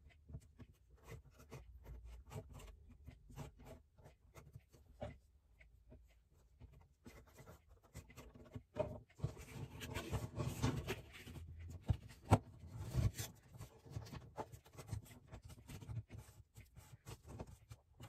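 Scrapbook paper being pressed and smoothed by hand onto a glued wooden paint stir stick: faint paper rustling and rubbing with scattered small ticks and taps, busiest in the middle.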